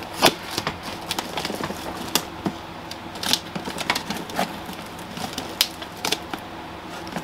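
Fingers picking and scratching at packing tape on a cardboard box, giving irregular clicks, scrapes and crinkles.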